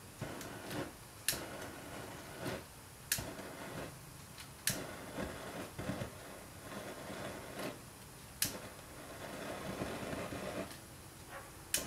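Sharp single clicks of a handheld lighter's igniter, five of them a second or two apart, as a gasoline-vapor torch tip is lit, with a faint steady rushing in between.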